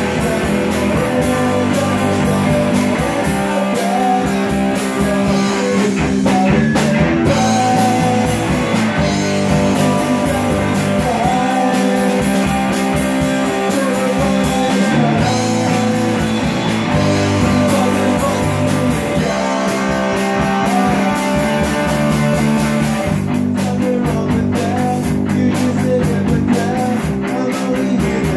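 A small rock band playing live: semi-hollow electric guitar, electric bass and drum kit playing a steady rock groove, with a voice singing over it.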